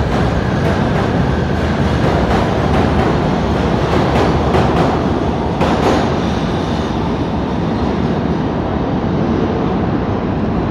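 PATH PA5 subway train pulling out of the station past the platform: a steady loud rumble of wheels on rail, with a few sharp clacks near the middle as the cars roll over the rail joints.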